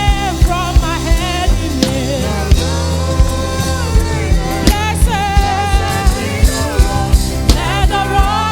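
Gospel worship music played by a live band: a drum kit keeps a steady beat under a bass line while a voice sings a held, wavering melody.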